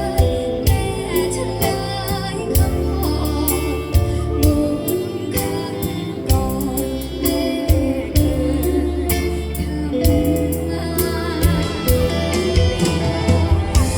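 A song: a singing voice over instruments and drums with a steady beat.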